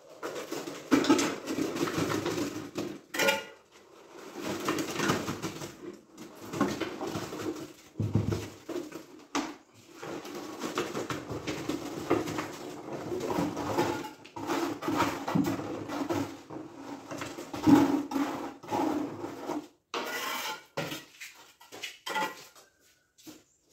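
Broken concrete and rubble being scraped, knocked and clattered by hand, an irregular run of scrapes and knocks with short pauses.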